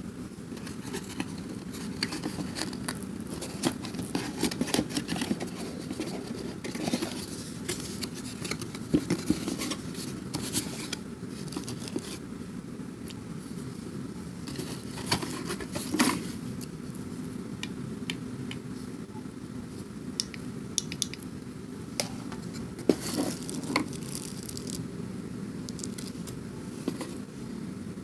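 Hard objects being handled: scattered clicks, taps and scrapes over a steady low hum.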